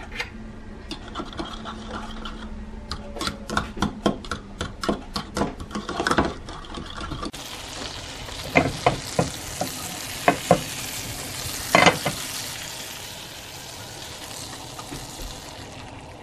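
An egg being beaten in a plastic cup, a run of quick taps. From about seven seconds in, butter sizzles in a hot nonstick frying pan, with a few sharp knocks of a utensil or the pan.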